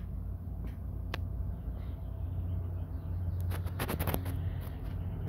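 A kitten batting at a round plastic cat toy: a single click about a second in, then a quick run of clicks and rattles about three and a half seconds in, over a steady low hum.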